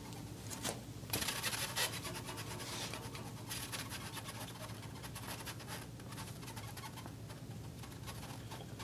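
Marker pen writing on a glass lightboard: a run of short, irregular scratchy strokes as words are written out.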